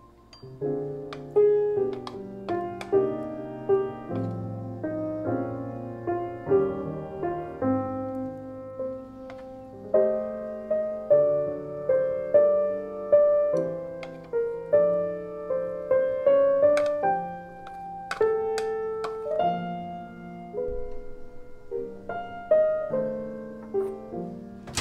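Background piano music: a slow melody over chords, each note struck and left to fade.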